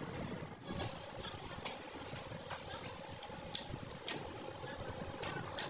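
Sharp metallic clicks and taps, about seven of them at uneven intervals, over a steady workshop hum: metal parts of a steering rack being handled and worked on.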